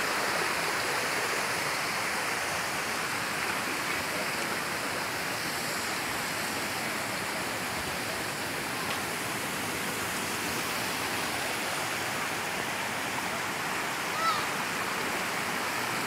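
Steady rush of running mountain water from a forest creek and waterfall, an even hiss with no break.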